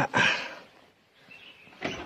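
Old door with a broken hinge creaking and scraping as it is moved, loudest at the start and fading within about half a second.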